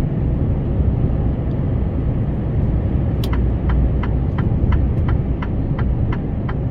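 Steady engine and road rumble inside a moving lorry's cab. From about halfway there is an even ticking, roughly three clicks a second, from the turn-signal indicator.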